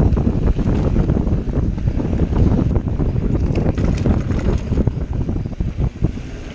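Mountain bike riding fast down a dirt singletrack: wind buffeting the action camera's microphone over the rumble of tyres on dirt, with frequent small clicks and rattles from the bike on the rough trail.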